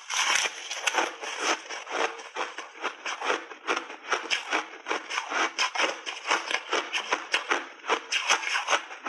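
Close-miked crunching of ice and refrozen berries being chewed in big bites, with rapid, irregular crunches several times a second.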